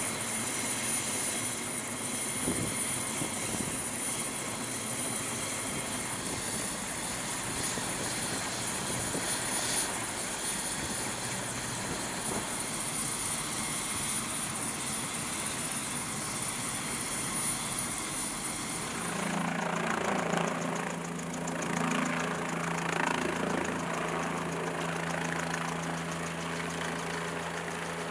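MQ-8B Fire Scout unmanned helicopter running on a ship's flight deck: steady turbine and rotor noise with a thin high whine. About two-thirds of the way in the whine stops and a steady low hum takes over.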